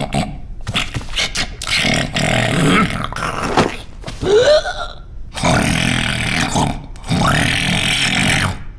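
Cartoon characters' wordless vocal noises: a run of short grunting, gurgling bursts, some sliding up or down in pitch. Near the end a cartoon parrot calls out loudly.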